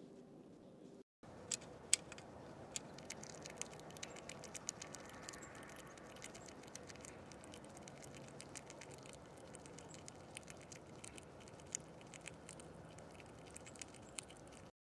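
Irregular light taps and clicks from a small animal feeding at a window feeder, over a faint steady background hiss, starting after a short gap about a second in.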